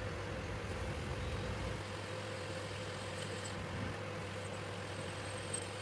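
Lathe running with a steady hum while its cutting tool turns a 5° taper on a stainless steel pipe nozzle.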